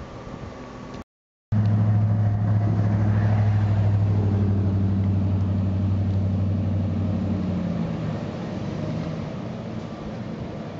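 A motor vehicle's engine running with a steady low pitch, cutting in abruptly after a brief dropout about a second and a half in, then fading away over the last few seconds.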